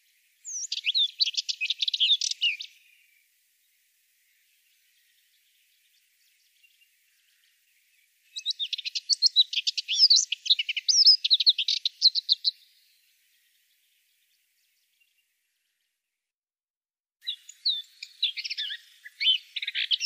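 Subalpine warbler singing: three phrases of fast, high twittering song, each lasting a few seconds, separated by pauses of several seconds, the last starting near the end.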